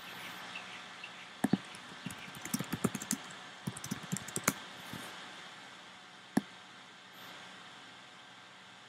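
Fingers tapping on an iPad's touchscreen: a quick, irregular run of taps and clicks for about three seconds, then a single tap a little later, over a faint hiss.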